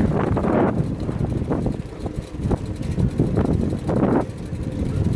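Wind rumbling on the microphone of a moving bicycle, with two louder gusts, one just after the start and one about four seconds in.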